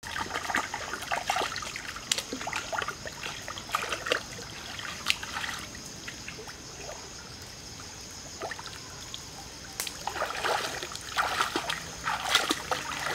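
Shallow stream water splashing and trickling as hands scoop and rinse in it, over the stream's steady flow. The splashing stops for a few seconds in the middle, then comes back as wading splashes near the end.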